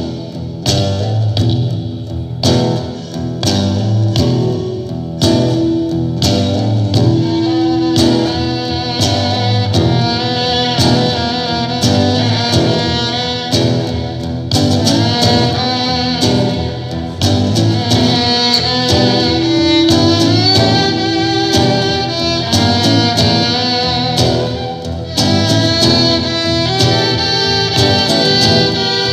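Live folk instrumental: a nylon-string classical guitar strummed in a steady rhythm under a fiddle melody, with a wind instrument playing along.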